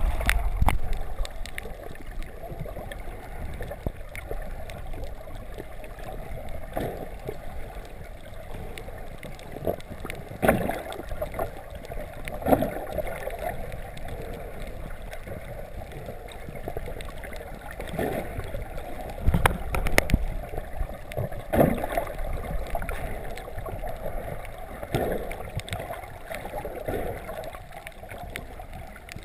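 Muffled underwater sound picked up through an underwater camera: water sloshing and gurgling, with dull knocks every few seconds.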